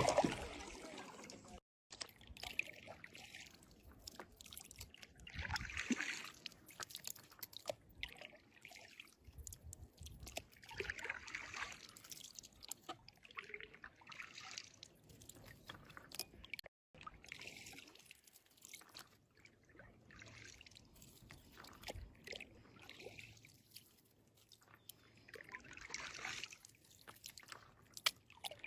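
Faint water sloshing and dripping, rising in soft swells every few seconds.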